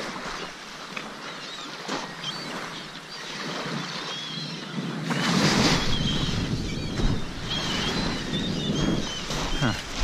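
Small waves washing onto a pebble beach, with wind buffeting the microphone from about halfway through.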